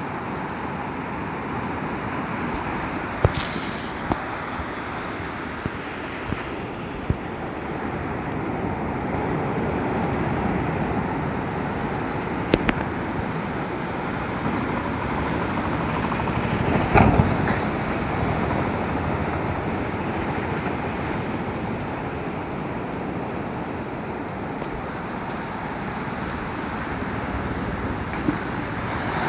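Sea waves breaking and washing up a beach: a steady rush of surf that swells now and then, with a few short clicks.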